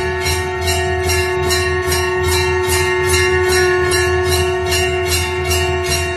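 Puja bells ringing in a steady rhythm, about two to three strokes a second, over one long held steady note.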